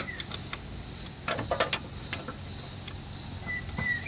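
Scattered clicks and knocks of a wrench and socket on metal as a 14 mm bolt on a car's drive-belt idler pulley is worked loose.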